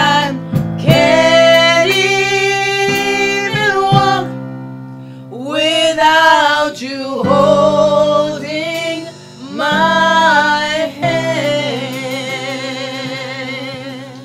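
Worship music: a singer holding long notes with vibrato in phrases of a few seconds, over sustained instrumental chords.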